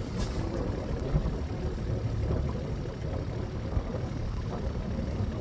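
Kubota utility vehicle's engine running steadily at low revs, with wind buffeting the microphone.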